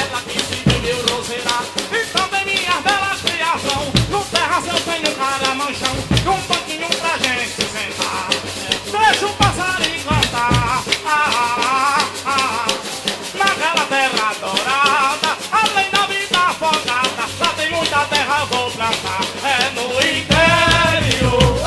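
Live coco played by a percussion-and-voice group: pandeiros and a shaker keep up a fast, dense rhythm under group singing, with deep drum strokes. The low drumming gets heavier near the end.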